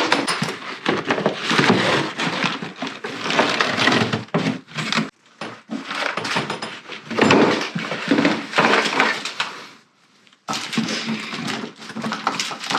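Rustling and knocking as a hard-shell suitcase and its contents are handled, with a short break about ten seconds in.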